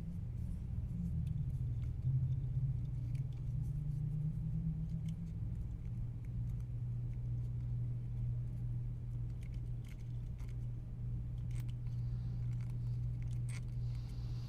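Steady low hum, with a few faint small clicks and taps from handling small parts.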